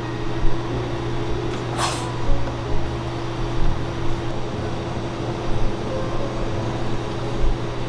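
Steady machine hum, like a fan or refrigeration unit, with a brief hiss about two seconds in and a few soft low knocks.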